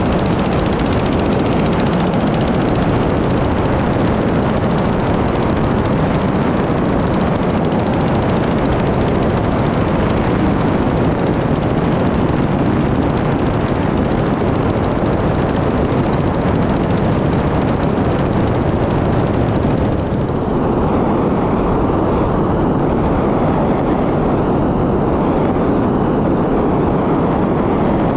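JH Aircraft Corsair ultralight in flight: its engine and propeller running steadily at cruise, with rushing air over a wing-mounted camera. About twenty seconds in the sound turns duller, losing some of its hiss, and then carries on steadily.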